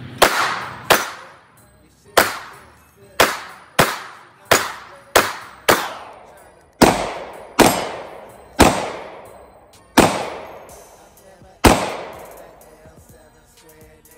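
9mm pistol firing about thirteen shots at an uneven pace, sometimes nearly two a second, each sharp report trailing off in a long echo. The shots stop about two seconds before the end.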